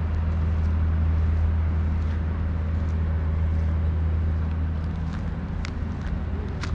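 Steady low engine hum from a vehicle or machine out of view, easing off slightly in the last couple of seconds, with a few faint clicks near the end.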